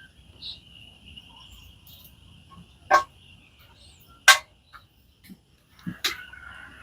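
Steady high-pitched insect trill, with two loud sharp clicks about three and four seconds in and a fainter click near the end.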